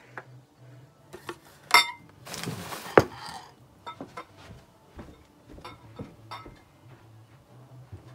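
Crockery and a drinking glass clinking and knocking together as they are gathered up and stacked, the sharpest clink about three seconds in, then only faint scattered taps.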